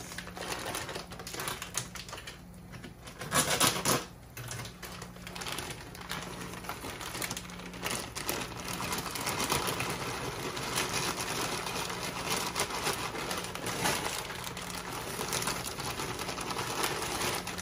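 Dry fusilli pasta rattling in its plastic bag and dropping into a pot of boiling water: a fast, continuous clatter of small clicks, with a louder clatter about three and a half seconds in.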